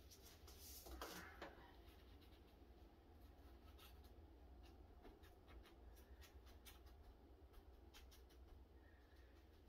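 Near silence: faint rustling of a paper seed packet and light scattered ticks of fingers working seeds into the potting soil of a seed-starting tray.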